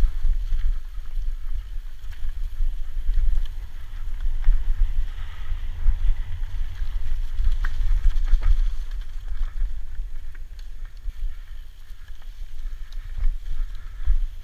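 Mountain bike ridden fast downhill on a dirt and rock forest trail: wind buffets the camera's microphone in a constant low rumble, with tyre noise and scattered knocks and rattles from the bike over the rough ground.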